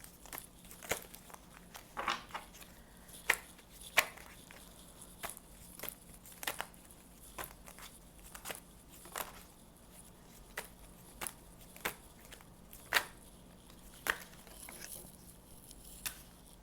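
A deck of tarot cards being shuffled and handled by hand: a run of irregular sharp card snaps and flicks, about one or two a second, over a faint steady hum.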